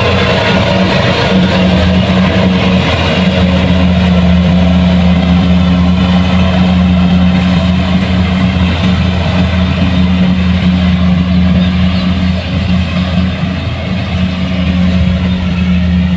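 Kubota rice combine harvester's diesel engine running steadily at working speed, a loud continuous drone with a little machinery clatter.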